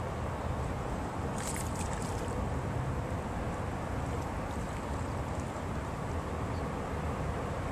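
Steady low rumble of wind on the microphone outdoors, with a short spell of light clicking about a second and a half in.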